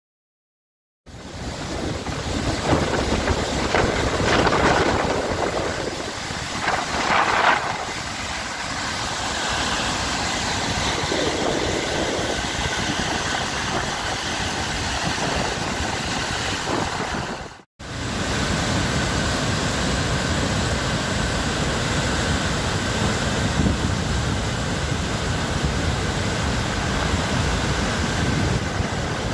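River in flood spilling over the Châtelot arch dam and churning in the gorge below: a steady roar of falling water. Wind gusts on the microphone through the first several seconds, and the sound cuts out for an instant about two-thirds of the way through.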